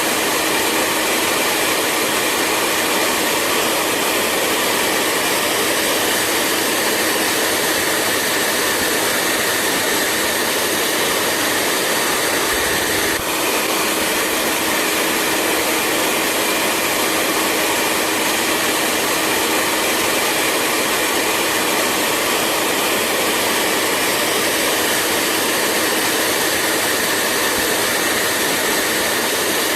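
Hair dryer running steadily: an even rush of air with a steady low hum and a higher whine, and a brief dip in level about 13 seconds in.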